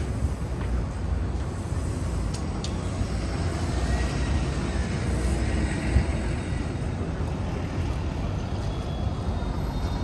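City street traffic: a steady rumble of passing vehicles, with a faint tone rising and falling in the middle and one short, sharp knock about six seconds in.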